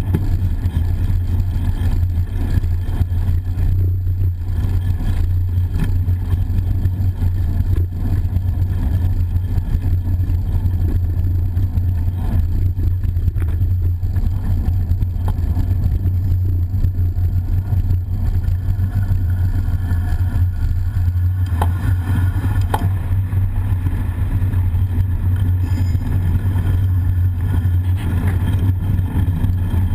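Steady low rumble inside a road tunnel, heard from a bicycle riding the tunnel's walkway: echoing traffic noise mixed with the bike's own rolling noise on the bike-mounted camera. A couple of faint clicks come about two-thirds of the way through.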